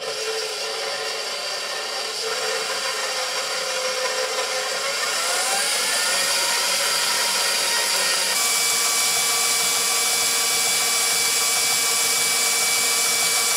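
Electric stand mixer running steadily, beating a partly frozen watermelon ice-cream base to whip air into it. The sound changes slightly about two-thirds of the way through.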